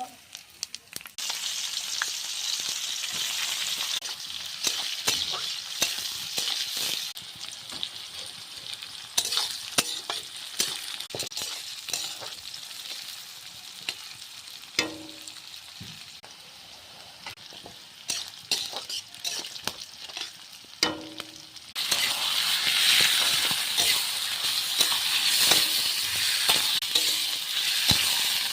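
Chicken frying and sizzling in hot oil in a pan, stirred with a metal utensil that clicks and scrapes against the pan. The sizzle grows louder about three-quarters of the way through.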